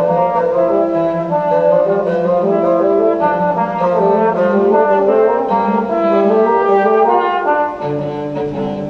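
Chamber ensemble music led by a trombone, playing held, overlapping notes that shift every half second or so.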